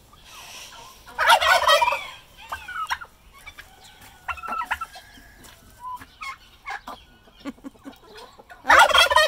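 Domestic tom turkey gobbling twice, a loud rattling call about a second in and again near the end, with short, quieter calls from other poultry between.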